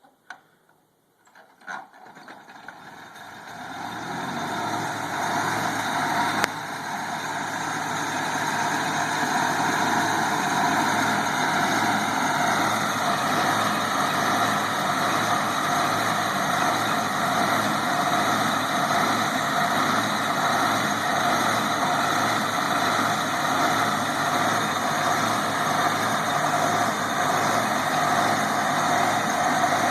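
Engine of a 1940s Longyear core drill starting up: a couple of short clicks, then the engine catches about two seconds in, gathers over several seconds and settles into steady running.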